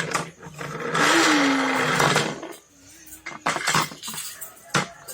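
Plastic toy train track pieces clicking and clattering as they are handled and fitted together. About a second in comes a loud hissing whoosh, lasting about a second and a half, with a slightly falling tone in it.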